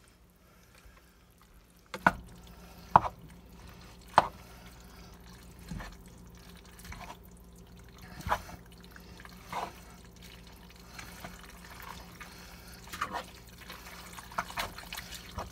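Wet squelching of cooked egg noodles being folded into a creamy soup-and-broth sauce in a large pot with a plastic spoon, with several sharp knocks of the spoon against the pot.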